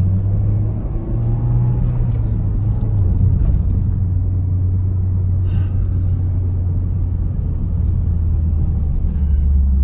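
Steady low engine and road rumble inside the cabin of a Mitsubishi Lancer Evolution X being driven, its 2.0-litre turbocharged four-cylinder running at a cruise.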